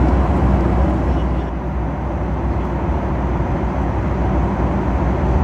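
Boeing 737 MAX 8 cabin noise in cruise, heard at a window seat beside the wing and its CFM LEAP-1B engine: a steady, loud low drone of airflow and engine. The upper hiss dulls slightly about a second and a half in.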